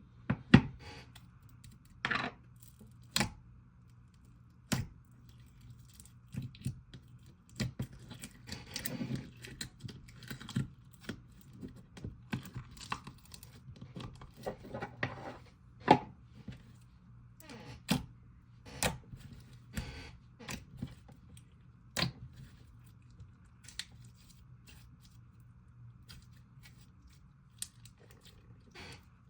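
Clear slime with river-rock inclusions being stretched, squished and clicked by hand, giving irregular sharp sticky clicks and short crackly pops.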